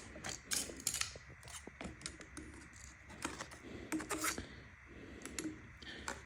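Faint, irregular light clicks and small rattles from hands handling the e-bike's parts and packaging.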